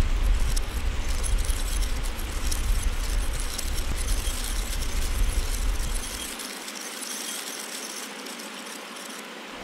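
Designed sound effect for a particle animation: a dense, glittering, tinkling hiss over a low rumble. The rumble cuts out about six seconds in, and the hiss carries on more quietly to the end.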